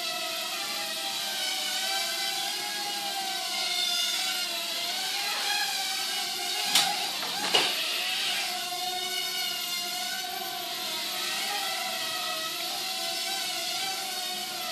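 Hubsan X4 micro quadcopter's small motors and propellers whining in flight, the pitch wavering up and down as the throttle changes. About halfway through come two sharp knocks less than a second apart, as the prop-guarded quad bumps into something.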